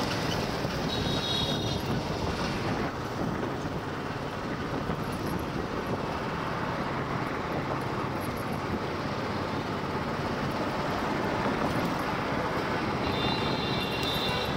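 Wind rushing over the microphone with engine and road noise from a motorcycle ridden through traffic, steady throughout. Faint high-pitched tones sound briefly about a second in and again near the end.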